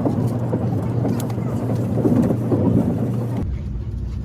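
Steady low hum and rumble of a moving vehicle, with faint voices in the background; the sound changes abruptly a little over three seconds in.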